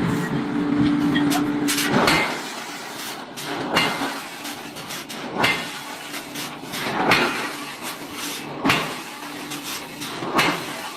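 A heavy machine running: a steady mechanical hum for about the first two seconds, then a regular cycle of short, loud strokes roughly every second and a half.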